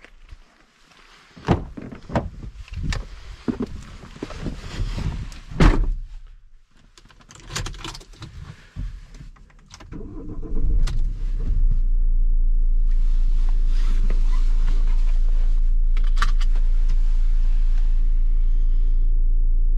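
A run of knocks and clunks, then about halfway through the Ford Tourneo Custom's 2.0 TDCi four-cylinder diesel starts and settles into a steady idle.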